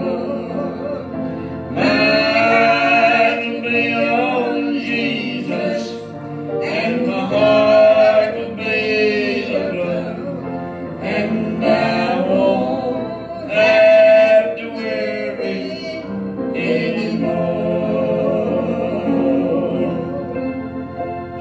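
A gospel song sung to piano accompaniment, with long held notes that swell louder twice.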